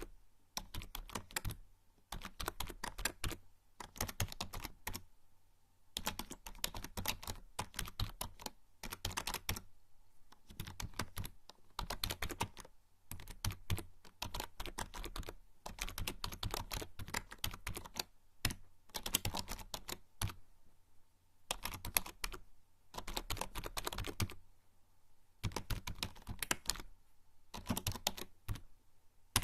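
Typing on a membrane computer keyboard: quick runs of soft key clicks in bursts of a second or two, with short pauses between them.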